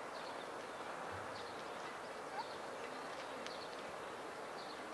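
Western lowland gorilla chewing leafy vegetables: faint, crisp crunching of leaves over a steady background hiss.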